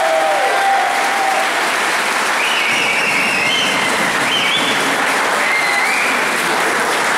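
Audience applauding steadily, with a few high held tones heard over the clapping partway through.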